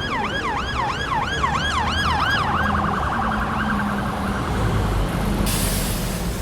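Emergency vehicle siren yelping, rising and falling about two and a half times a second, then switching to a much faster warble that fades, over the low hum of the vehicle's engine. A burst of hiss comes near the end.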